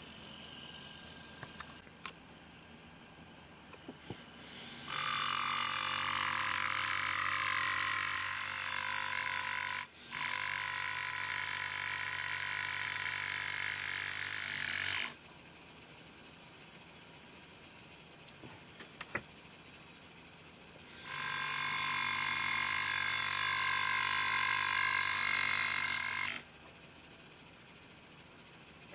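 Pneumatic engraving handpiece run by a GraverMach AT, buzzing steadily as it cuts lettering into a steel knife blade. It runs in two long stretches of several seconds each, starting and stopping abruptly. The first is briefly interrupted partway through, and the second follows after a pause of a few seconds.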